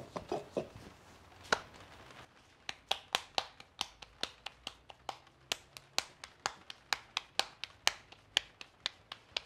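Hands patting a ball of corn masa flat between the palms to shape a gordita, a steady run of soft slaps about three a second from a few seconds in.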